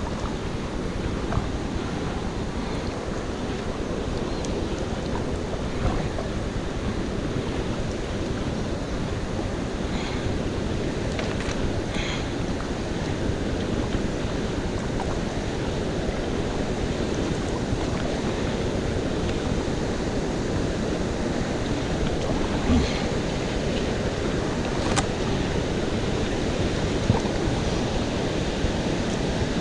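Steady low rushing noise of wind buffeting the microphone over the water sounds of a kayak being paddled. A few faint, short high sounds come about ten to twelve seconds in and again near twenty-five seconds.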